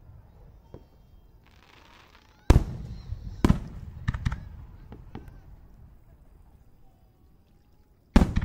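Aerial fireworks shells bursting: a hiss, then a loud bang about two and a half seconds in and another a second later, followed by several smaller pops, with a further loud bang near the end.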